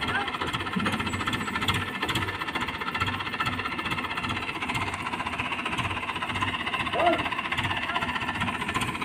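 Crane engine running steadily with a regular knocking pulse. A man's brief call about seven seconds in.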